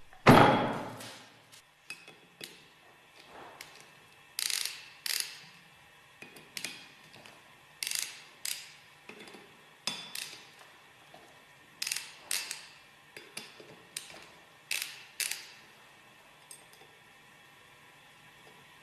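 A heavy stainless-steel separator bowl knocks down onto the bench with a brief metallic ring. Then come a string of sharp metal clicks, often in pairs, as a hex key seats in and turns the Allen screws of the bowl's brass water chamber bottom. The clicks stop a few seconds before the end.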